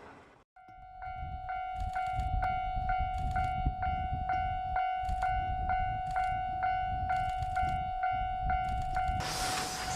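Japanese level-crossing warning bell ringing, an even ding about twice a second over a held tone, with wind rumbling on the microphone underneath. Near the end the louder noise of the approaching steam train rises over it.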